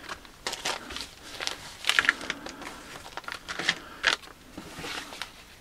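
Plastic packaging bags crinkling and rustling as they are handled, in short irregular crackles.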